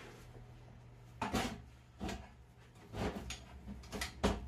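Steel clanks and scrapes as a steel block is set into the sliding jaws of a homemade steel vise worked by a 20 kg gas shock absorber: about five knocks, the loudest about a second in.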